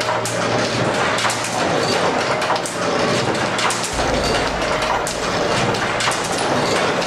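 Loud, dense mechanical clatter with many irregular knocks, over faint background music.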